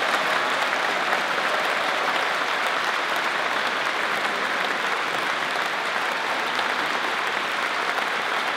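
A large crowd clapping steadily in dense, sustained applause that eases off slightly over the seconds.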